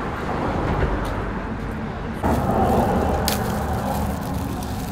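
Steady road traffic noise from passing cars, which abruptly gets louder about two seconds in. A brief sharp click sounds about a second after that.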